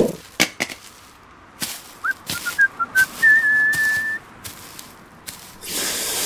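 A short whistled tune: a quick rising note, a few short notes, then one long held note lasting about a second. A few sharp clicks fall around it.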